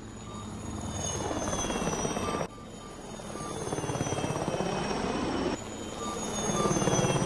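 Helicopter flyby sound effect: rapid rotor chop with its whine falling slowly in pitch. It breaks off abruptly and restarts twice as playback jumps to different points in the recording.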